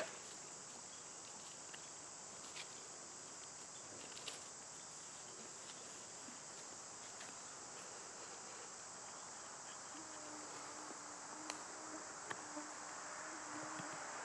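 Steady high-pitched chorus of insects, with a few faint ticks from a knife notching a green stick. From about ten seconds in, a low buzz from a flying insect comes and goes.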